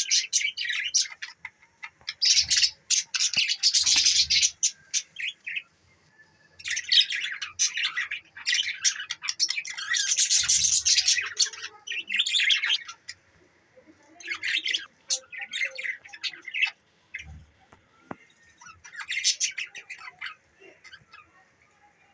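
Budgerigars chattering and chirping in rapid, warbling bursts with short pauses between them, quieter toward the end.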